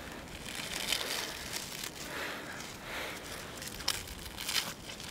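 A slow-cooked hedgehog's spiny skin being torn apart by hand: rustling, crackling and tearing, with a few sharper crackles near the end.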